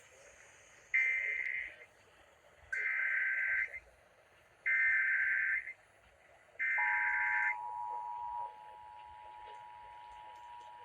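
Emergency Alert System data header played over broadcast radio: four short bursts of warbling digital data tones, about two seconds apart. The two-tone EAS attention signal comes in with the last burst and holds steady, dropping in level about eight and a half seconds in.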